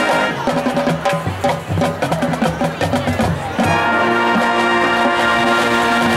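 High school marching band playing. A held brass chord breaks off into about three seconds of busy percussion, then the full band comes back in on a long sustained chord.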